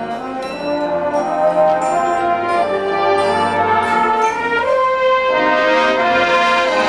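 Marching band brass section playing held chords that shift every second or so, with a few mallet-percussion strikes in the first part and a new chord about five seconds in.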